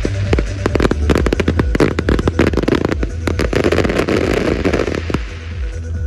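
Fireworks display: a rapid barrage of bangs with dense crackling, heaviest from about two to five seconds in, over music with a steady bass beat.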